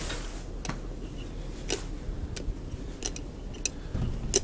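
1967 Flohr-Otis traction elevator running: a low steady hum with about eight sharp clicks and ticks at irregular spacing, the loudest near the end.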